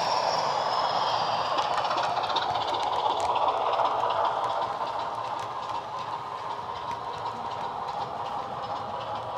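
Heljan Class 25 model locomotive's DCC sound decoder playing a recorded Class 25 diesel engine through its speakers, mixed with the running noise of the model train on the track. The sound drops off about halfway through as the locomotive moves away and the coaches pass.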